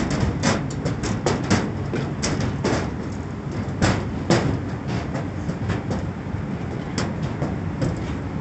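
Wind buffeting the microphone, a steady low rumble, with many irregular clicks and knocks through it.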